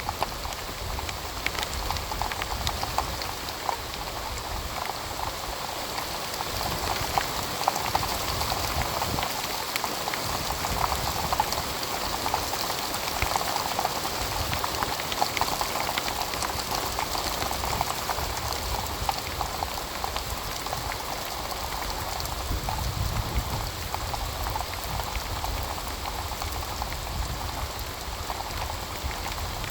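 Heavy rain pouring down, a dense steady hiss of drops hitting surfaces, with countless small ticks of individual drops and a low rumble that swells and fades.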